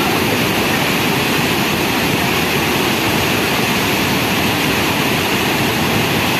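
Wide river waterfall in heavy flow, water pouring over a long run of rock ledges: a loud, steady, even rushing of falling water.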